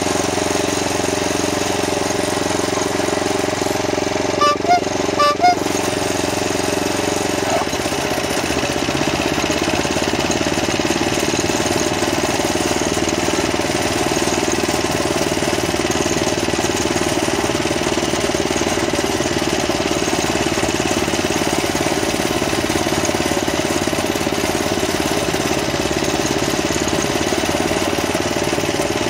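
Loncin petrol engine of a petrol-electric miniature railway locomotive running steadily as the train travels, its note turning rougher about seven seconds in. About five seconds in, four short high beeps sound over it.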